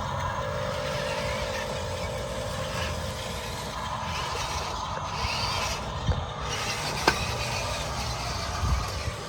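Motors and gearboxes of scale RC construction machines running steadily, with a few short knocks.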